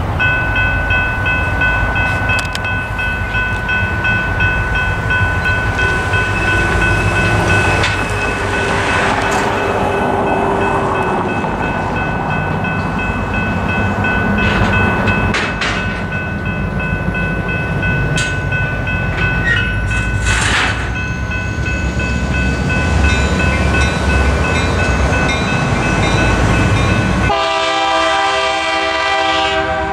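Railroad crossing's General Signals Type 3 electronic bell ringing steadily with a repeating high ding as the crossing activates, over passing road traffic. About 27 seconds in, the approaching train's lead EMD SD40-2 locomotive sounds its air horn.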